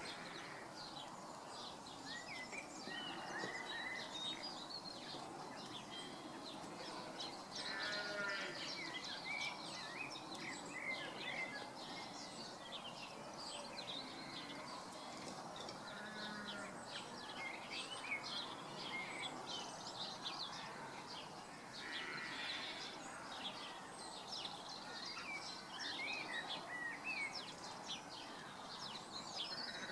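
Birds calling outdoors: many short chirps throughout, with a longer rattling call about 8 seconds in and again about 22 seconds in.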